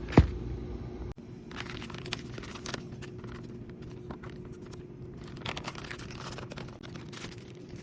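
Plastic packaging crinkling and rustling, with small clicks, as wires are pulled out of a hard start kit's bag. A sharp knock comes about a quarter second in, and a steady low hum runs underneath.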